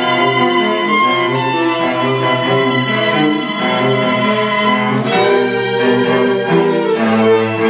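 String quartet of two violins, viola and cello playing live: sustained bowed notes over a low cello line, with a sharp new attack from all the strings about five seconds in.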